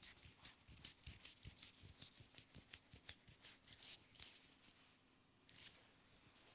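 Faint, quick rubbing strokes of a head massage on the hair, several a second, stopping about two-thirds of the way through, with a short pair of strokes near the end.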